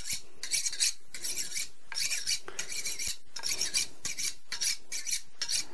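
A butcher's knife being honed on a sharpening steel: the blade is stroked quickly and evenly along the steel, a high scraping swish about two to three times a second.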